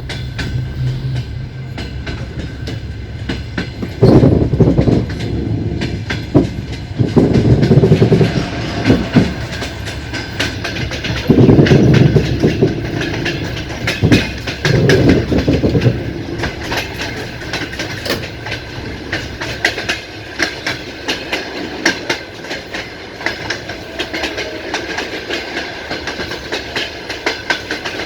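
Passenger train carriage wheels clattering over the rail joints at speed, a steady rumble with many sharp clicks. Several louder rumbling surges come in the first half, then it settles to the plain clatter.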